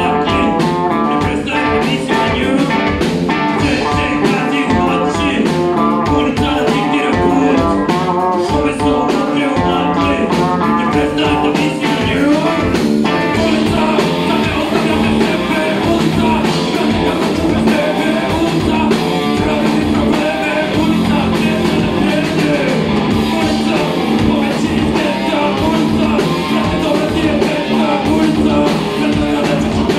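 Live rock band playing with electric guitar, bass guitar and drum kit, and a man singing into a microphone.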